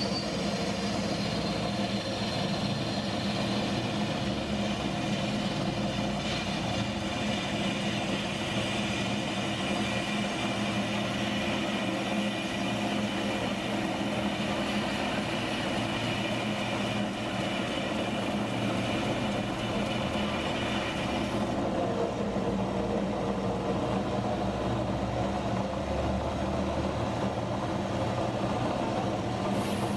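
Belt-driven workshop machine with a spinning vertical drum running steadily with a hum, as a sheet's edge is worked against it. A higher whine over the hum drops away about three quarters of the way through.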